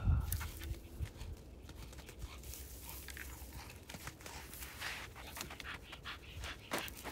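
Miniature bull terrier panting hard while hauling a heavy 7–8 kg stick through snow, with soft crunching steps in the snow.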